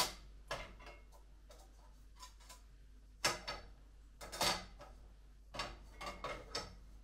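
Scattered clicks and knocks of hard plastic parts being handled and fitted together, with a sharper knock about three seconds in and a longer clatter shortly after, then a few quick clicks near the end.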